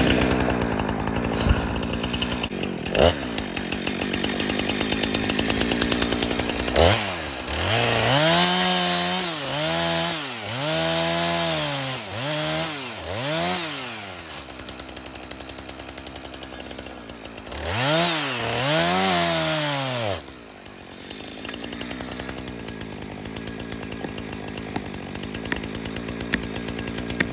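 Jonsered CS2255 two-stroke chainsaw idling, then revved up and down in a run of about five short bursts and later two more, as it nips away at the back cut of a birch being felled with wedges. Two sharp knocks come within the first three seconds, the wedge being tapped in.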